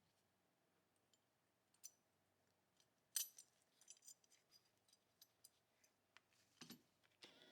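Faint scattered clicks and light metallic clinks of small Walther P38 pistol parts being handled during restoration, the sharpest about three seconds in.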